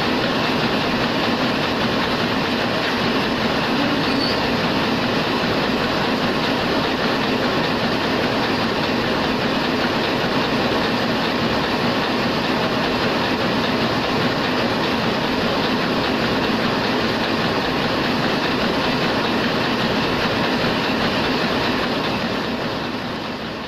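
Heidelberg SORMZ two-colour offset printing press running, a loud, steady mechanical din that fades away near the end.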